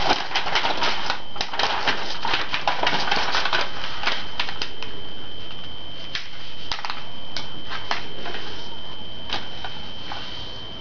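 Sheet of origami paper being handled and creased by hand, a run of crisp crackles and ticks as it is flattened and folded, busiest in the first few seconds and again past the middle. A thin steady high tone runs underneath.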